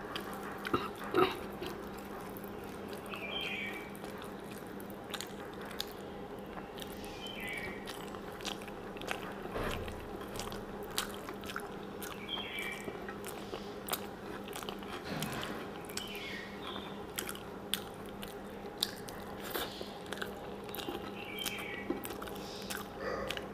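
Close-up eating sounds: chewing with many small wet clicks, and fingers squishing and mixing rice and vegetable curry on a clay plate. Under it a faint steady hum, and a short high chirp about every four to five seconds.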